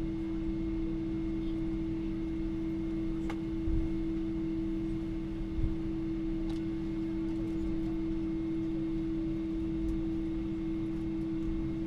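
Boeing 777-300 cabin noise: a steady drone of engines and air conditioning with two constant low hum tones. Two brief low thumps sound about four and six seconds in.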